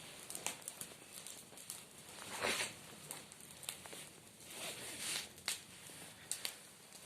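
Brushwood fire burning, with scattered faint crackles and pops and a few louder snaps.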